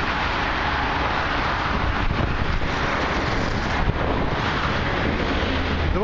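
Steady wind noise buffeting the microphone while riding a bicycle, an even rushing hiss over a low rumble.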